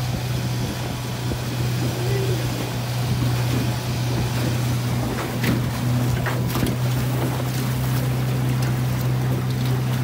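Small boat's outboard motor running at a steady pitch while under way, with wind and water noise over it.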